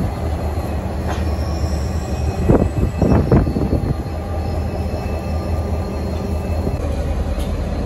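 Aurizon diesel-electric freight locomotives rumbling steadily as they crawl through a level crossing, with a few short screeches from the steel wheels on the rails about two and a half to three and a half seconds in.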